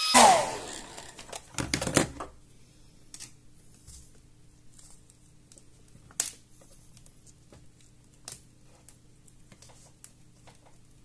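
A hand-held hair dryer switched off, its whine falling away over about a second. Then come a few sharp clicks and scattered light taps and scrapes from hands and a small screwdriver working at a laptop display panel and its hinge.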